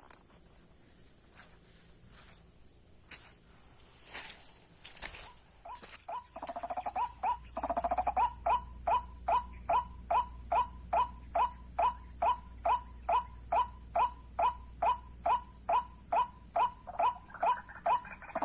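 White-breasted waterhen (ruak-ruak) calling: a steady run of short rising notes, about two to three a second, starting about six seconds in after a few scattered knocks and rustles. A steady high insect buzz sounds underneath.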